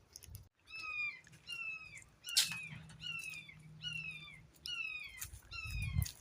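Hawk screaming: a series of about nine calls that slide down in pitch, coming a little under two a second. A sharp click sounds about two and a half seconds in.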